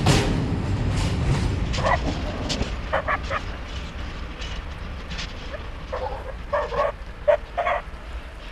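The last wagons of a freight train of open box wagons roll slowly away, the wheel rumble and rattle fading. Short barks cut through in two groups, a few at about 2 to 3 seconds in and a cluster at about 6 to 7.5 seconds.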